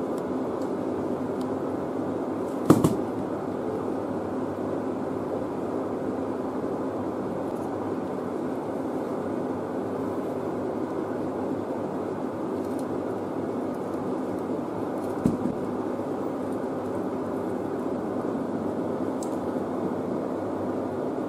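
Steady background hum of a small room, with one sharp knock about three seconds in and a lighter knock about fifteen seconds in.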